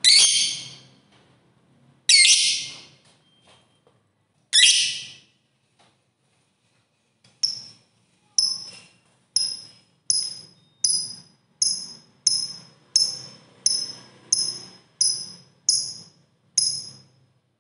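Lovebird calling: three loud, harsh shrieks about two seconds apart, then after a short pause an even run of shorter, sharp high chirps repeated about one and a half times a second.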